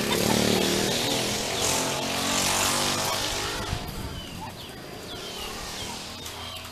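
A motor vehicle's engine running steadily, loudest at first and fading away over the second half.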